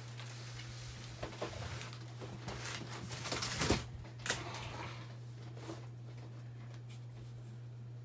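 Small hard objects being handled: irregular light clicks and rattles, the loudest a few seconds in, over a steady low hum.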